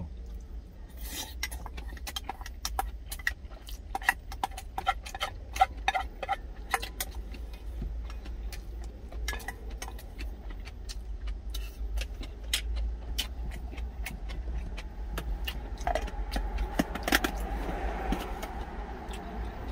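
Wooden chopsticks clicking, tapping and scraping against a stainless steel lunch container while eating, many quick sharp clicks at an uneven pace, over a steady low rumble. Near the end a car goes by outside with a rising rush.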